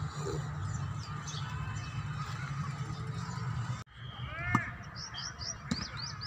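Small birds chirping again and again over a low steady rumble. The sound breaks off for an instant just before four seconds in, and then comes one short, loud call.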